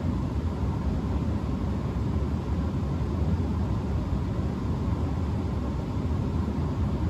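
Bryant Legacy gas furnace running: a steady low rumble with an even rush of air from its blower and burners.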